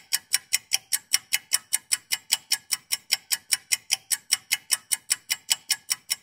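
Steady clock-like ticking sound effect, about five even, sharp ticks a second.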